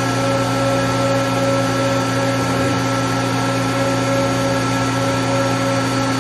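Spindle of a Mori Seiki GV-503 5AX CNC vertical machining center running steadily at high speed, a constant machine whine with several steady tones.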